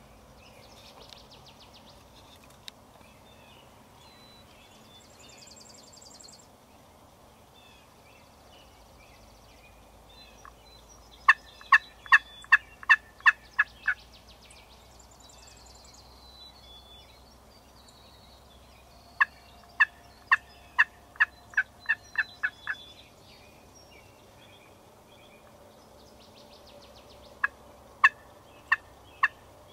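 Turkey yelping: three runs of loud, short, evenly spaced calls, about eight notes, then about ten, then four near the end.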